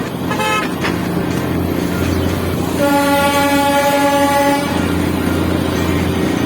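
A vehicle horn sounds a short toot, then a steady blast of about two seconds near the middle, over a continuous low running rumble.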